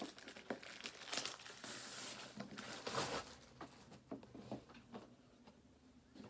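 Plastic packaging crinkling and tearing as it is unwrapped from a boxed flat iron: a run of rustles and crackles, loudest about one and three seconds in, that dies away after about four and a half seconds.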